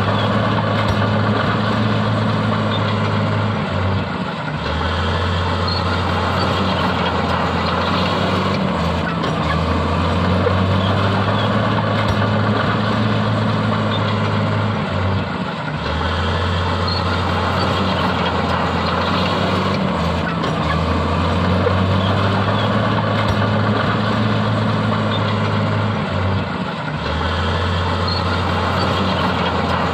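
Heavy diesel earthmoving machinery running under load, a steady low drone that dips and breaks off briefly every few seconds as the engine load changes.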